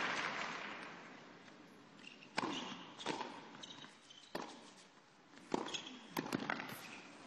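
Tennis rally on an indoor hard court: a series of sharp racket hits and ball bounces, roughly a second apart, in a hushed arena. Applause dies away in the first second or two.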